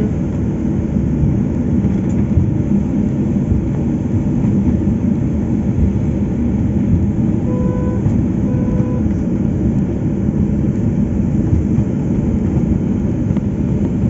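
Inside the cabin of a Boeing 737-800 taxiing, a steady low rumble from its CFM56-7B engines at taxi power. Two short electronic beeps of the same pitch sound near the middle, about a second apart.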